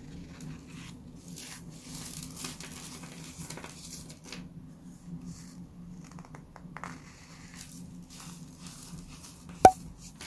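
Hands crushing and crumbling a dry baking soda block topped with sugar sprinkles: irregular crunching and crackling. Near the end, one sharp, loud click with a short ring.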